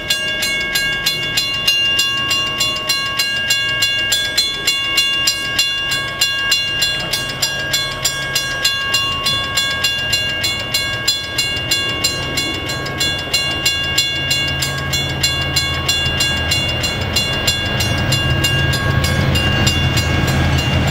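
Railroad grade-crossing bell ringing steadily at about two strikes a second. Over the last several seconds the low rumble of the approaching diesel passenger train, led by EMD E-unit locomotives, builds beneath it.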